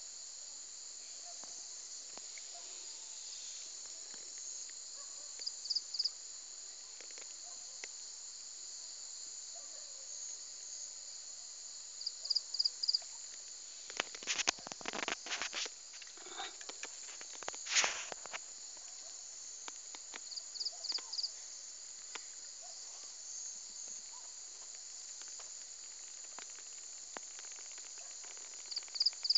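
Steady high-pitched chorus of insects, with a short three-pulse chirp repeating every seven or eight seconds. About halfway through there is a few seconds of rustling and clicks.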